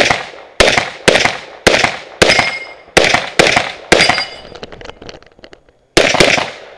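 Tanfoglio .38 Super competition pistol firing rapid shots, roughly half a second apart, each with a short echo. Eight shots come in quick succession, then a pause of about two seconds with only faint clicks, then two more shots close together near the end.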